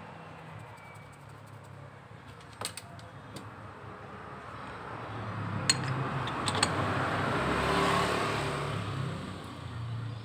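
Small metal scooter pulley parts clinking as they are handled, a few light clicks about two and a half seconds in and again around six seconds in. Behind them a passing vehicle swells up and fades away.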